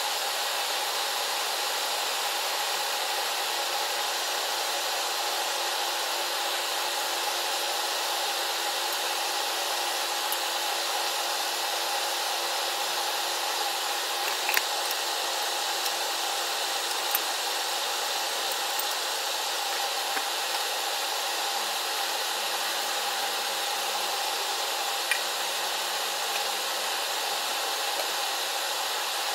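Steady rushing, fan-like hiss with a faint hum in it, unbroken throughout, with a few faint clicks.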